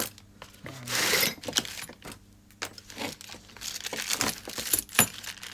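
Small metal clicks and clinks along with the rustle of a plastic bag as wheel bearings are handled and taken out of their bag. The rustle is loudest about a second in.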